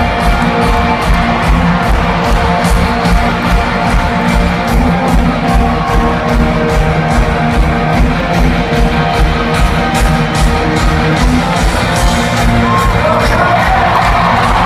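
Loud amplified music with a steady beat over a stadium concert PA, with crowd shouting mixed in, picked up by a phone in the stands.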